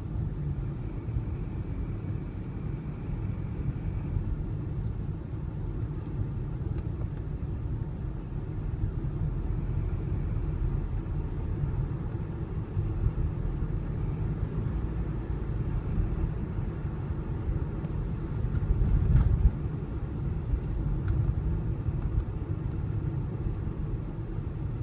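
Toyota ZRR70W (Noah/Voxy) 2.0-litre four-cylinder running at about 1400–1500 rpm as a steady low rumble. The owner reports an abnormal buzzing noise at these revs. The rumble swells briefly about three-quarters of the way through.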